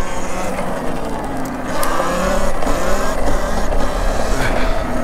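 Electric motor whine of a Talaria Sting electric dirt bike running on a GLE BAC8000 controller while riding along a road, with tyre noise and wind rumbling on the microphone. The whine grows louder about two seconds in.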